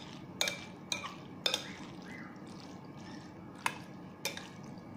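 A spoon mixing creamy macaroni salad in a glass bowl: soft wet stirring with about half a dozen sharp clinks of the spoon against the glass, over a steady low hum.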